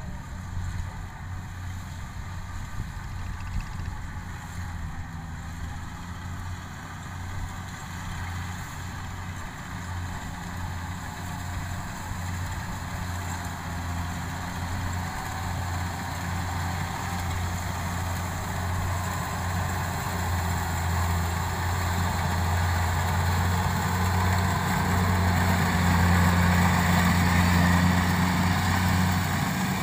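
Kubota DC70 combine harvester, fitted with a threshing-machine gearbox, running as it cuts rice: a steady engine hum with threshing noise above it, growing steadily louder as the machine draws closer.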